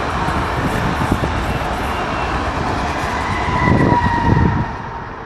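Electric passenger trains passing close by, among them a Hyundai Intercity+ unit: a steady rolling rumble with a run of wheel thumps over rail joints about four seconds in, and a faint high whine. The rumble drops off sharply near the end.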